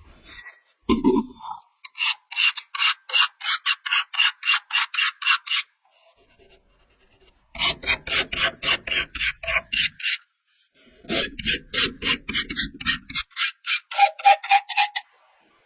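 Fast back-and-forth abrasive rubbing strokes, about four a second, in three runs with short pauses between, typical of scrubbing or sanding rust off the stove's metal by hand.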